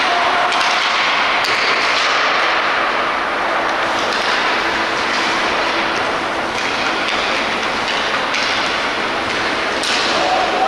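Ice hockey play on the rink: a steady scraping hiss of skate blades on the ice, with occasional sharper clacks of sticks and puck.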